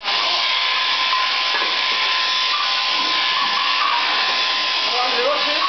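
Electric sheep-shearing handpiece on an overhead drive shaft running steadily, with a constant whine, as its comb and cutter clip through a sheep's fleece. A sheep bleats near the end.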